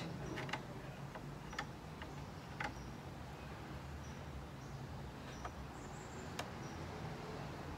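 A few faint, sharp clicks and taps from a wooden strip being handled and held against the wooden obelisk frame while its angle is marked, over a low steady background hum.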